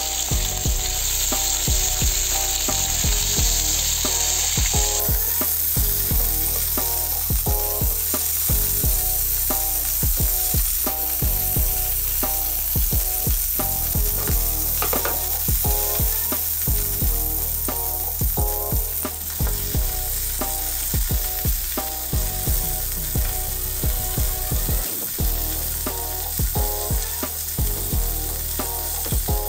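Beef sausages sizzling and frying in hot oil in a grill pan, with many short clicks and knocks as they are moved and turned with a spatula.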